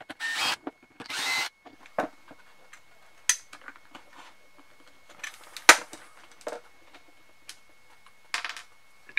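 A cordless drill-driver runs in two short bursts, backing out the screws of a drill's plastic housing. Then come light clicks and scraping as a utility knife blade pries at the housing's screw covers, with one sharp click about halfway.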